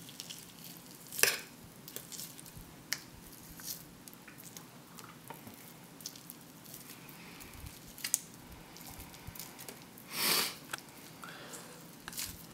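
Fork working apart tender cooked chicken on a paper plate: soft squishes and small clicks of the fork against meat, bone and plate. A short, louder rustle comes about ten seconds in.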